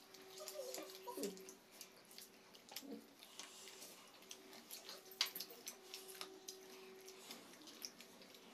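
Quiet eating: scattered soft clicks and taps of fingers and momos on china plates, with a sharper click about five seconds in. A faint steady hum runs underneath, and a brief mumbled voice comes about a second in.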